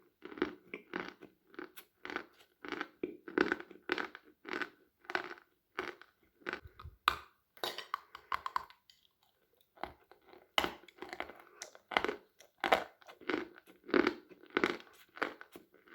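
Sawn chalk (Khrapovsky) being bitten and chewed: a steady run of crunches about two a second. The chewing pauses about nine seconds in, then starts again with a sharp crunch.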